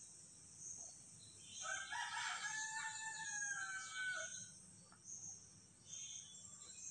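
A rooster crows once, one long call lasting about two and a half seconds that starts about a second and a half in, over the steady high chirping of insects.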